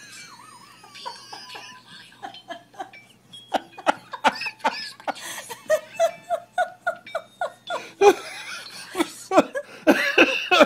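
A person laughing hard in quick repeated bursts that grow louder toward the end, over the crinkle of a plastic bag.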